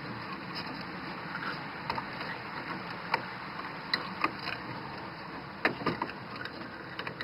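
Scattered light clicks and knocks from plastic electrical connectors being handled and pushed onto a heater fan switch, over a steady background hiss.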